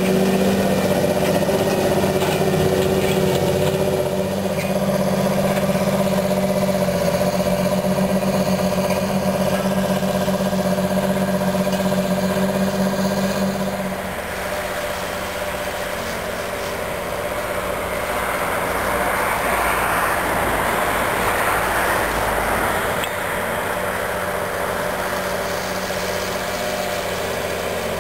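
John Deere 8530 tractor's six-cylinder diesel engine running steadily under load while pulling a five-shank subsoiler. It is heard close up at first; about halfway it turns quieter and further off, with more rushing noise over the engine.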